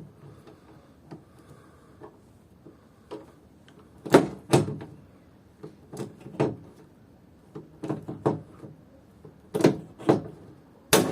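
Hand pop-rivet gun being squeezed stroke by stroke on a blind rivet, each stroke giving a pair of sharp metallic clacks about half a second apart, about every second and a half from about four seconds in, with the loudest snap near the end as the rivet sets.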